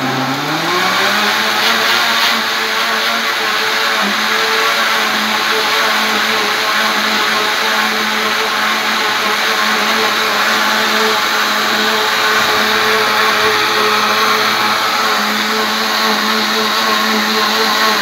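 Mondial Turbo Inox L1200 blender (1200 W) running at maximum speed with its jar full of water to the 2.1-litre mark. The motor rises in pitch over the first second or so, then holds a loud, steady whine over the churning of the water.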